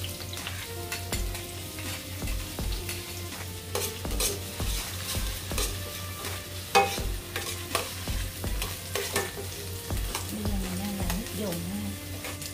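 Fresh shallots sizzling in hot oil in a pot while being stirred, with irregular clicks and scrapes of the utensil against the pot.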